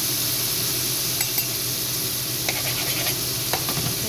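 Steak sizzling in butter in a hot frying pan, a steady hiss, with a few light clicks and scrapes of a utensil against the pan. A steady low hum runs underneath.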